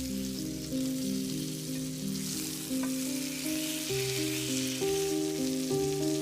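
Food sizzling as it fries in a pan, under background music: a melody of short, evenly stepped notes.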